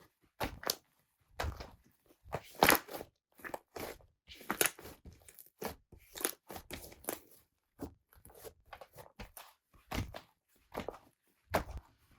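Hands pressing, squeezing and folding a slime, giving irregular crackling pops and sticky clicks with occasional soft thumps, a few each second.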